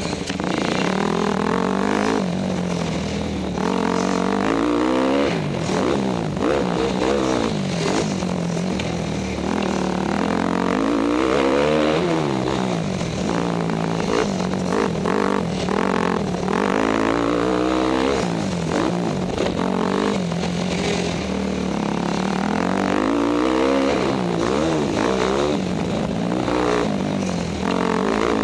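Yamaha YZ250F's four-stroke single-cylinder engine under way, revving up and dropping back over and over as the rider accelerates and lets off through the turns on a dirt track.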